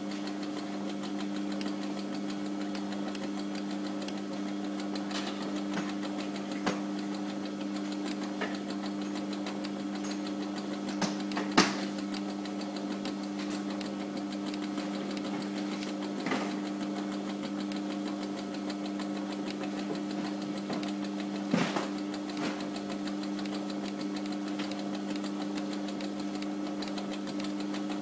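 Steady hum of a Pago Systems 100 labelling machine running, with a few sharp clicks scattered through it as keys on its control panel are pressed. The loudest click comes a little before halfway.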